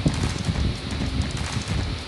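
Bicycle thread-on freewheel cogs clicking and knocking in a quick, irregular patter as they are worked by hand. The freewheel is threaded onto a steel hub and wobbles on it, which is normal for that type.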